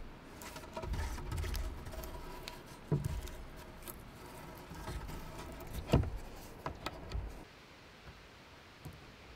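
Scattered wooden knocks and thuds of logs being handled and set in place, two louder knocks about three seconds apart, with faint rustling.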